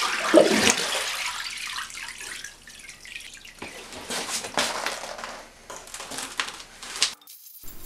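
Soapy cleaning water sloshing and splashing in a plastic tub as an aluminium BMW M54 engine block is rocked in it and then lifted out. Water runs and drips off the block back into the tub.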